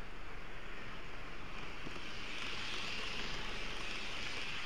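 Steady rushing running noise of an N-scale model train, picked up by a small camera riding on it. A higher hiss swells from about two seconds in as an oncoming model train passes close by on the next track.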